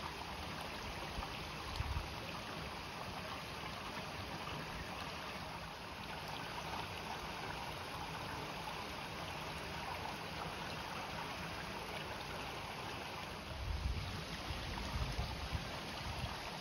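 Water spilling over the weir boards of a salmon hatchery channel: a steady rush and splash. A few low thuds near the end.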